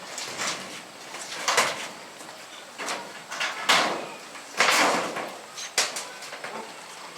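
A series of irregular knocks and scraping noises from corrugated steel arch sections being shifted and raised, the longest scrape about two-thirds of the way in.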